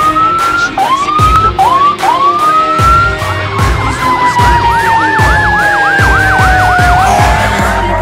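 Fire engine sirens passing. First an electronic siren gives a string of quick rising whoops. Then it switches to a fast yelp of about three cycles a second, over a steady siren wail that slowly falls in pitch.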